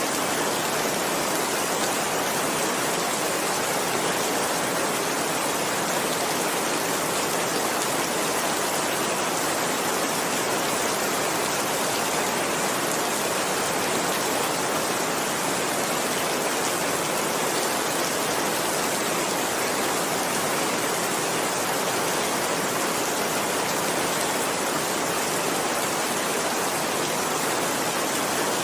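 Steady heavy rain falling, an even hiss without breaks or distinct drops.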